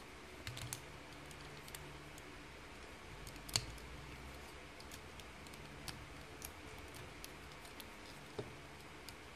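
Faint, scattered clicks and taps of small plastic transforming-robot figure parts being handled and unpegged, the sharpest click about three and a half seconds in.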